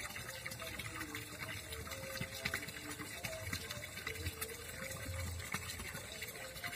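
Steady trickle of water in a shallow, muddy ditch, with faint small ticks through it.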